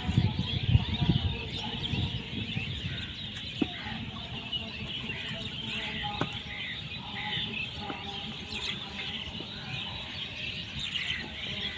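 A dense, steady chorus of many short, high animal calls, with a few low thuds in the first second or so.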